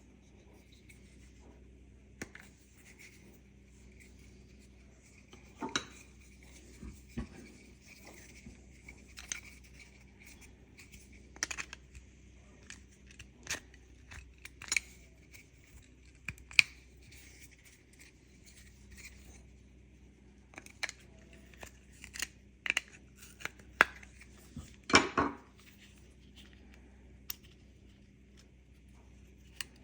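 Irregular small clicks, taps and light scrapes of hard plastic key fob parts being handled and fitted together by hand, with a louder run of clicks toward the end.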